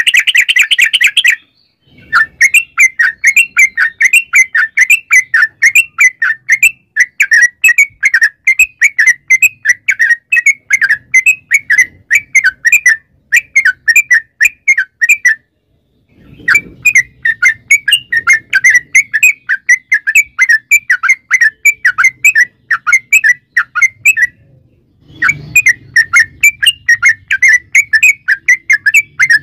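Yellow-vented bulbul singing loudly: long runs of rapid chirping notes, about four or five a second, broken by a brief pause about halfway through and another near the end.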